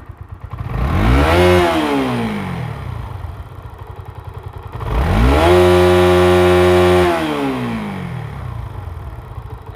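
Bajaj Pulsar AS 150's single-cylinder engine idling and revved twice: a short blip about a second in, then a longer rev held high for a moment before dropping back to idle. It runs smoothly, with none of the ticking rattle from the cam chain tensioner, which has just been replaced with a new one.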